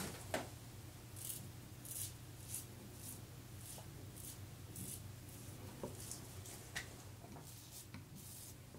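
Leningrad-1 safety razor scraping through lathered stubble on the cheek: a run of short, faint, scratchy strokes, roughly two a second.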